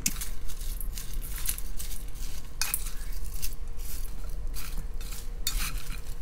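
Wooden chopsticks tossing cut daikon radish strips and chopped daikon leaves in a bowl to mix in salt and sugar, with irregular clicks and scrapes of the chopsticks against the bowl.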